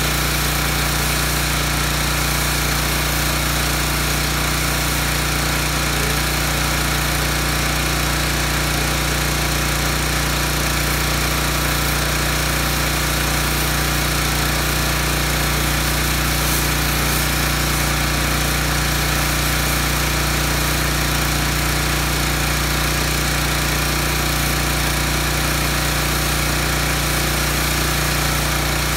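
Pressure washer motor running steadily with a constant low drone during a foam-cannon car wash.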